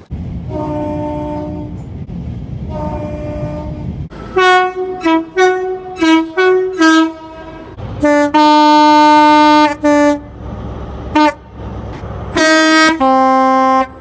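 British train two-tone horns. First a horn is sounded twice over the low rumble of a moving train, heard from on board. Then a rapid string of short high-low blasts, a long held blast, two short toots and a final high-then-low two-tone call, from a Class 43 HST power car's horn.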